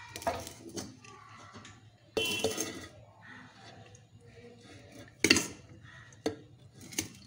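Metal utensils clinking and knocking against a steel cooking pot: several short, sharp knocks, the loudest about five seconds in.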